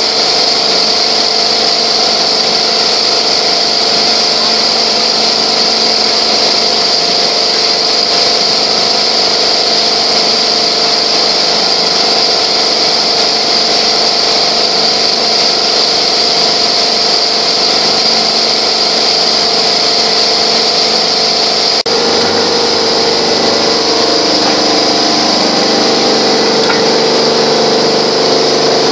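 Multi-needle quilting machine running at high speed (rated 1500 rpm): a loud, steady mechanical running noise with a constant hum. A brief break about 22 seconds in, after which a lower hum comes through more strongly.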